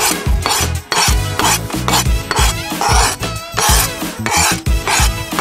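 Diced vegetables are scraped off a cutting board into a metal pot, rasping several times in short strokes. Background music with a steady beat runs underneath.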